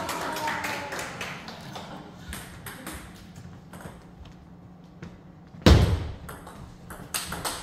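Table tennis ball clicking off the bats and the table during a rally: scattered sharp ticks, with one loud thump a little past halfway.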